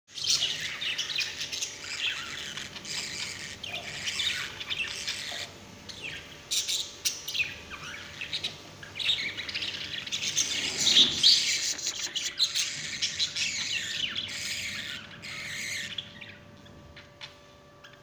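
Pet budgerigars chattering: a fast, continuous run of chirps and warbles that breaks off near the end.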